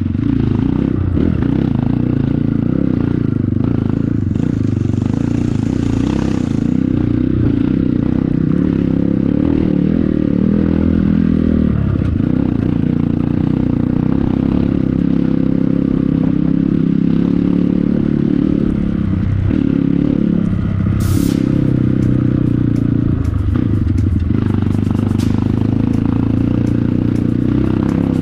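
Honda CRF150L trail bike's single-cylinder four-stroke engine running under load, its pitch rising and falling as the throttle opens and closes. Clattering and scraping of the bike over rough, muddy trail, with a sharp click about two-thirds of the way through.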